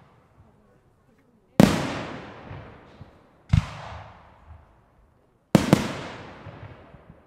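Aerial firework shells bursting overhead: a sharp bang about a second and a half in, another about two seconds later, then a quick double bang near the end. Each bang trails off in a long echo.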